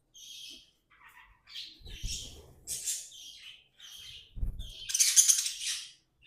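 Pet budgerigars chirping and chattering in a run of short calls, with a loud harsh squawk about five seconds in. Low dull bumps sound about two seconds in and again near four and a half seconds.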